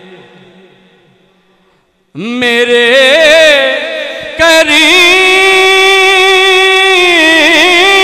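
A man singing a naat through a microphone with long, held notes that waver in pitch. A held note fades out, and after a short break about two seconds in he comes back in loudly.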